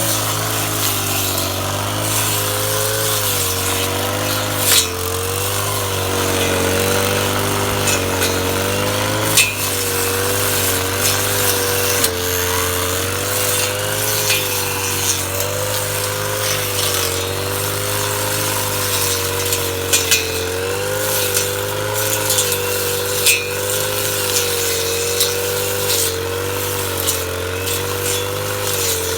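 Kiozit 253 two-stroke brush cutter running at high speed, its pitch wavering slightly, with scattered sharp clicks.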